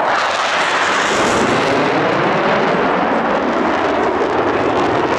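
Blue Angels F/A-18 Super Hornet jet passing low, a loud, steady rush of jet engine noise.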